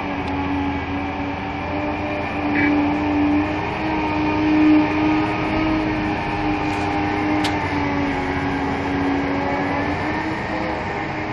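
Heavy diesel engines of a large hydraulic mining excavator and a haul truck running with a steady drone, swelling slightly about halfway through.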